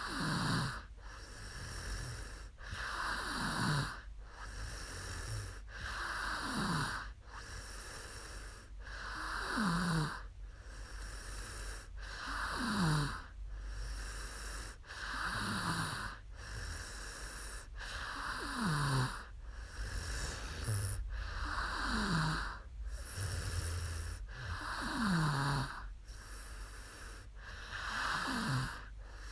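A woman snoring in her sleep, one slow breath about every three seconds, each snore dropping in pitch, with a breathy rush between.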